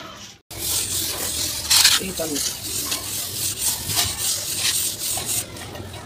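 Steel plastering float and trowel scraping and smoothing wet cement-sand plaster on a brick wall: a rough, irregular rasping, loudest about two seconds in. The sound drops out briefly just after the start.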